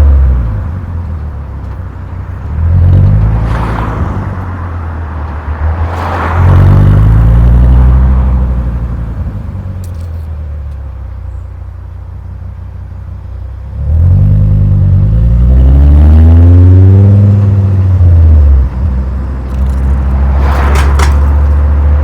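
Volkswagen Golf Mk4 VR5's five-cylinder engine and exhaust on the move: several pulls under throttle, each rising in pitch and then easing off as the throttle lifts. The longest and loudest pull, about two-thirds of the way through, cuts off sharply and the engine settles into a steady drone.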